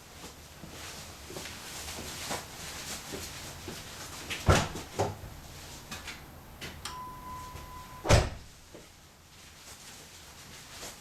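Clunks and knocks from a minivan, a single steady electronic beep of about a second, then a loud door-like slam just after it.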